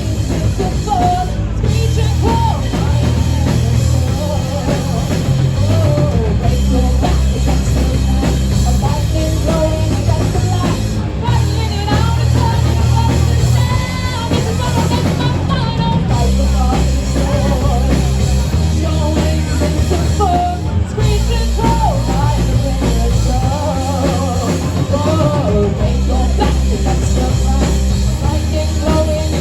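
Live rock band playing loudly: drum kit, bass and electric guitar, with a wavering melody line over a steady beat.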